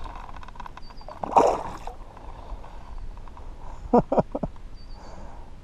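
A splash about a second and a half in as a small bullhead catfish is dropped back into the lake from a kayak, then a few short falling calls about four seconds in.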